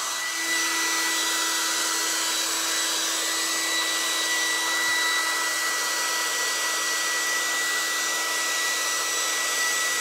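Handheld hair dryer running steadily, a constant rush of air with a steady whine. It is blowing on wet acrylic paint to dry it so the next colour will stick.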